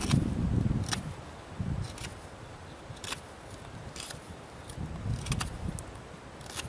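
Habilis Bush Tools Trapper knife shaving wood as it rounds off the end of a bow-drill spindle: short scraping strokes of the blade, about one a second, with a few low rumbles in between.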